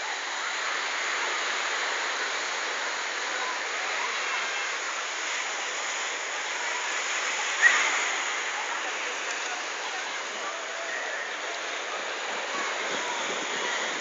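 Steady hiss of sea surf washing on a crowded pebble beach, with faint distant voices of bathers. A brief sharp sound stands out a little past halfway.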